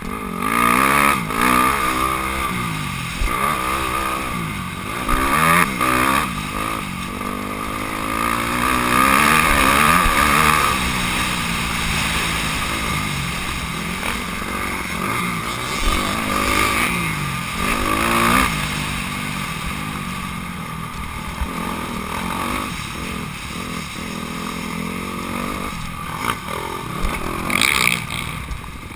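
Honda CRF250R's single-cylinder four-stroke engine under hard riding, revving up and falling back over and over as the rider works the throttle and shifts.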